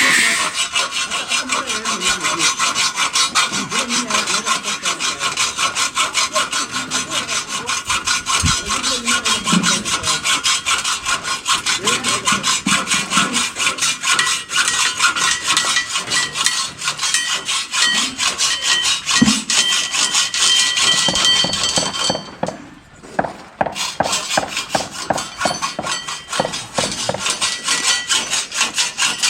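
Hacksaw cutting through metal with quick, steady back-and-forth strokes and a metallic ring. It stops briefly about three-quarters of the way through, then resumes.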